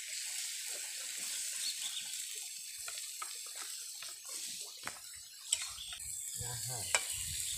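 Chopped meat sizzling in oil in a wok over a wood fire, a steady hiss with a few sharp clicks.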